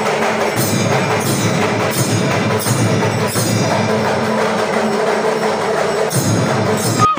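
Temple ritual percussion: drums and bells sounding together in a dense, steady din under a few held tones, with sharper strikes recurring about every 0.7 s, the accompaniment to a puja before the deity. It cuts off abruptly at the very end.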